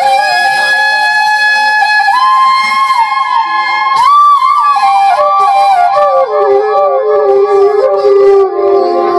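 Solo bamboo transverse flute (bansuri) playing a melodic interlude. A long held note gives way, about four seconds in, to a higher passage of quick ornamental turns, then settles on a lower held note for the last few seconds.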